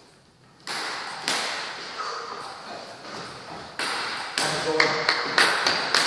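Table tennis ball bouncing in a series of sharp taps with a short ringing ping, a few spaced out at first, then coming quickly one after another over the last couple of seconds.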